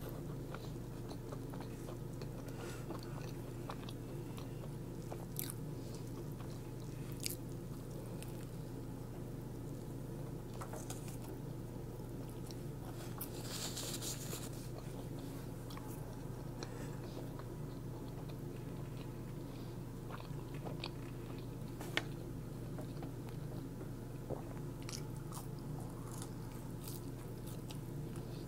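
A person biting and chewing Popeyes fast food, with scattered sharp crunches at irregular intervals. A steady low hum runs underneath.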